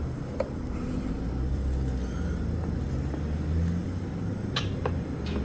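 Steady low hum, with a few light clicks and knocks as a microwave sandwich toaster is handled and set in place: one about half a second in and two close together near the end.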